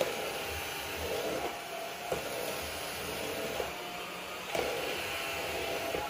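PRETTYCARE 27 kPa cordless stick vacuum with a brushless motor, running steadily on its average power mode while its brush head cleans carpet. The sound swells briefly every second or two.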